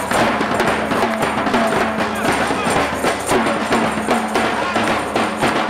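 Live drumming on snare drums and a bass drum, played in a continuous beat, with people's voices mixed in.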